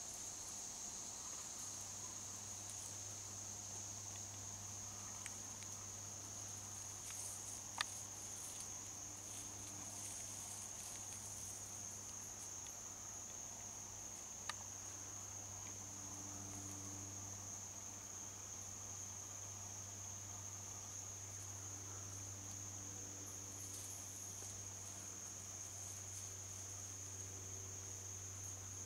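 Faint, steady high-pitched chorus of insects trilling in the woods. Two sharp clicks, about 8 and 14 seconds in.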